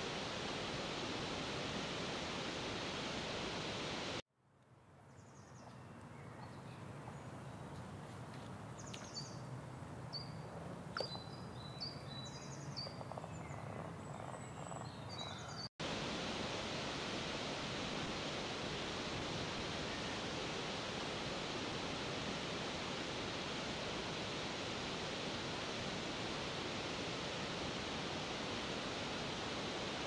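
Waterfall water rushing steadily. About four seconds in it cuts out abruptly and a quieter stretch fades in, with several short bird chirps. About halfway through, the steady rush of another cascade cuts back in.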